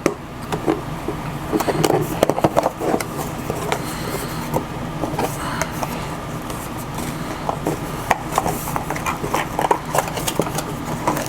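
Camera box and packaging being handled during an unboxing: irregular clicks, taps and scrapes over a steady low hum.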